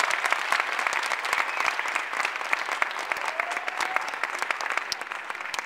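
Audience applause after a children's stage musical number: dense, fast clapping that thins out and dies down near the end.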